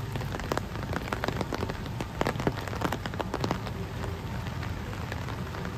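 Steady rain, with many separate drops striking hard and close to the microphone at irregular moments.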